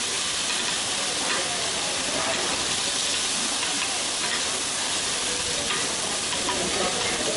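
Shredded cabbage sizzling and steaming on a hot iron teppan griddle as metal spatulas chop and toss it: a steady hiss, with a few light clicks of the spatulas on the iron.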